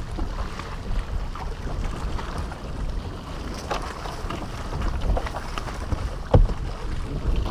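Wind on the microphone over a low rumble aboard a bass fishing boat, with scattered small clicks and one sharp knock a little past six seconds in.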